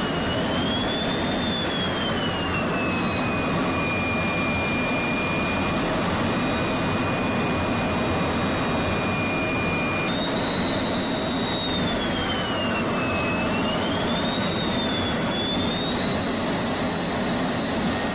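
Fighter jet engine running: a steady rush with a high turbine whine that dips and rises in pitch. The whine jumps suddenly to a higher pitch about ten seconds in.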